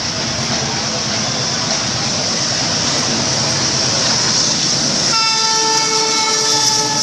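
WDM3D diesel locomotive and its express coaches rattling past on the rails. About five seconds in, the locomotive sounds a long blast on its horn.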